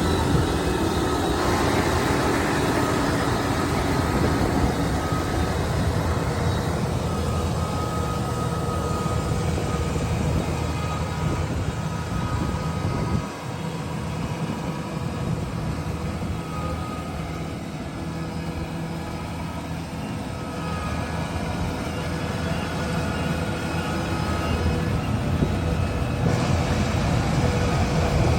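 Kubota DC-108X combine harvester running steadily: a low engine hum with a faint higher whine over it, briefly quieter about halfway through.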